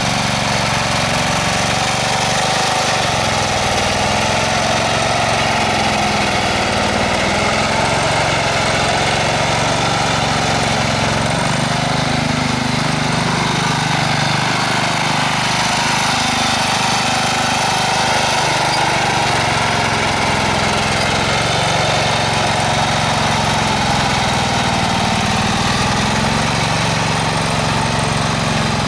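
Allis-Chalmers B-12 garden tractor's 12 hp Briggs & Stratton engine running steadily as the tractor is driven, its pitch rising and falling a little every few seconds.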